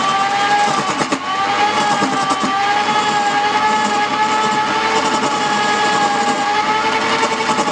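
Wood-turning lathe running with a steady, slightly wavering high whine over a rushing noise, dipping briefly about a second in.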